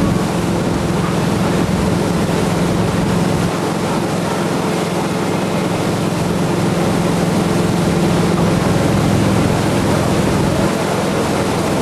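Engine of a Centurion Typhoon ski boat running steadily at speed while towing a tube, a constant low drone, with the rush of water from the churning wake.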